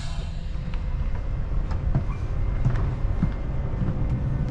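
Steady low rumble inside a train carriage, with a few light knocks and clicks scattered through it.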